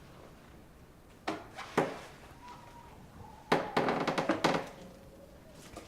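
Sharp knocks and clunks: two single knocks about a second in, then a quick run of several clattering knocks around the middle, over quiet room tone.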